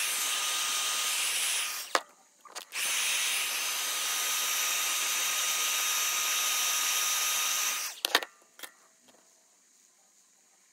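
Electric heat gun blowing hot air, a steady rush of air with a faint whine. It cuts off about two seconds in, comes back on with a click about a second later, and is switched off near eight seconds, followed by a couple of clicks.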